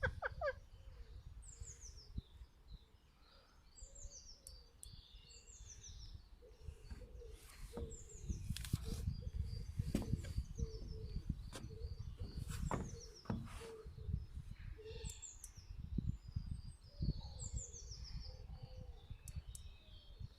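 Birds calling from the trees: short high chirps that slide downward, repeated every couple of seconds, over a low steady rumble and a few sharp clicks.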